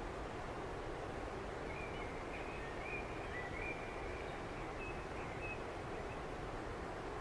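Steady outdoor nature ambience with a constant background hiss, and faint, short whistled calls of distant birds scattered through it.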